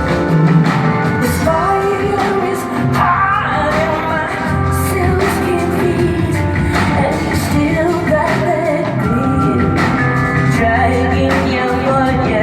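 Live band music: a woman singing over a steady bass line and drums.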